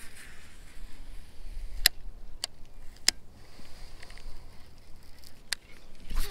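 Baitcasting reel in use: a few sharp clicks and a faint low whir as it winds in. Near the end the spool's falling whine starts as another cast goes out.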